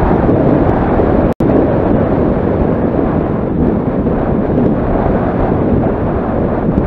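Heavy wind buffeting the action camera's microphone during a fast downhill run, a steady loud rumble. The sound cuts out completely for an instant about a second and a half in.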